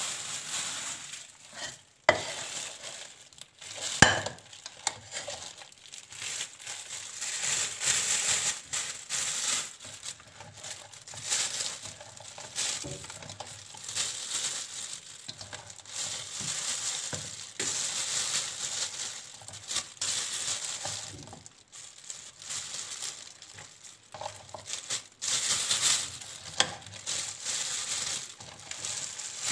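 Thin plastic freezer bag rustling and crinkling as it is handled and filled with strawberries by hand, with a couple of sharp knocks in the first few seconds.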